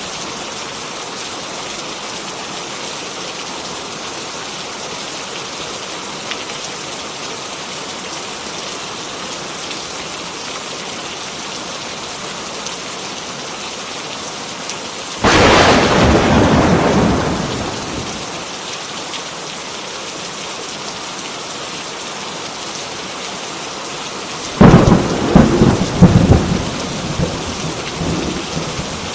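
Heavy rain falling steadily, with two sudden claps of thunder: one about halfway through that fades over a few seconds, and another near the end that rumbles on in several peals.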